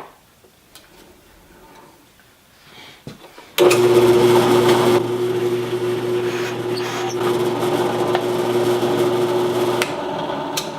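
Drill press with a 5/16 in bit switched on about a third of the way in, running with a steady hum while it drills a hole in a cherry blank. It is switched off near the end and winds down.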